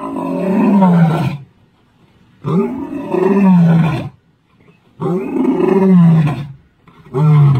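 Adult male lion roaring: three long, deep calls, each falling in pitch, then a shorter grunting call near the end.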